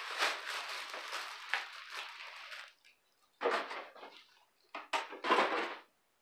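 Clear plastic wrapping crinkling as it is handled, continuous for the first two and a half seconds, then a few short rustles after a pause.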